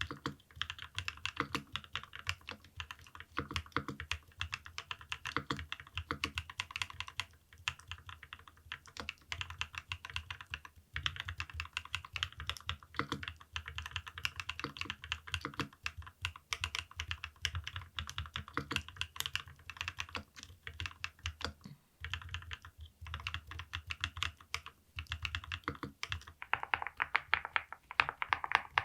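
Continuous fast typing on a NAGARE80 Barista custom mechanical keyboard fitted with lubed Flower Shadow linear switches and PBT keycaps, with a few brief pauses. Near the end the keystrokes turn sharper and louder.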